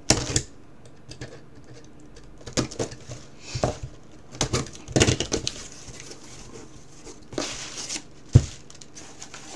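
Box cutter slicing through the packing tape on a small corrugated cardboard box in several short strokes, then the cardboard flaps rustling as they are pulled open, with a sharp knock near the end.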